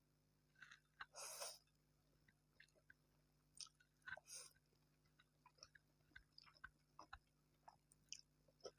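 Close-miked eating: a person chewing, with many soft wet mouth clicks and two longer, louder noisy sounds, one about a second in and one about four seconds in.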